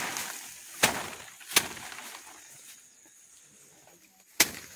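Sheaves of rice stalks beaten by hand to thresh out the grain: three sharp whacks with a brief rattle of loose grain and straw after each, two in the first couple of seconds and a louder one near the end.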